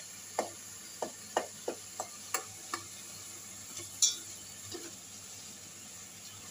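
Chicken and vegetables being stirred in a metal cooking pot: the stirring utensil scrapes and knocks against the pot's side in a quick run of taps over the first three seconds, then twice more, over a faint frying background.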